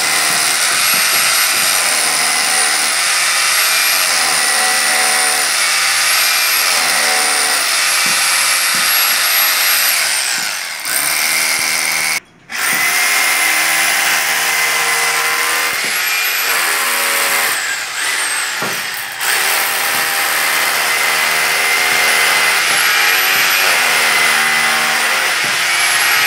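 Electric hammer drill boring into a concrete column, its motor running fast with the pitch wavering under load. It breaks off sharply for a moment about twelve seconds in, then runs on.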